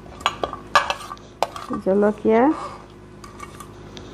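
A metal spoon clinking and scraping against a glass plate while sliced green chillies are pushed off it into a bowl, with a few sharp clinks in the first second and a half.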